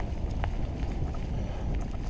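Wind noise on the microphone of a mountain bike riding a leaf-strewn dirt trail, with the tyres rolling over the ground and scattered small clicks and rattles.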